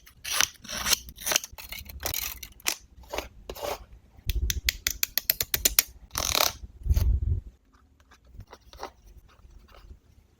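Scissors cutting paper in a run of short snips, coming fast around the middle and tailing off to faint small sounds in the last few seconds.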